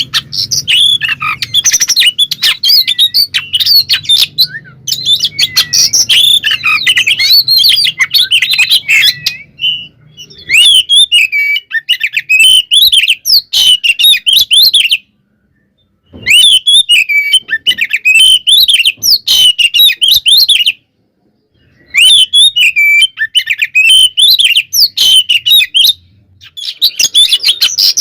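Oriental magpie-robin (kacer) in loud, continuous full song: fast, varied runs of chirps, whistles and harsh notes, the excited fighting-mode song that kacer keepers call gacor. The song breaks off completely twice, briefly, about halfway through and again some six seconds later.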